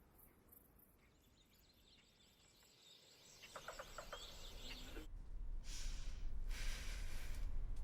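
Outdoor ambience: a few quick bird chirps about halfway through. A low rumble builds under them, and two rushing swells of noise come near the end.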